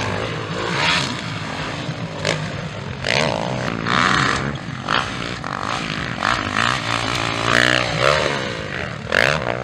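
Motocross dirt bike engines running hard, their pitch repeatedly rising and falling as riders open and close the throttle around the track, with louder swells as bikes come past.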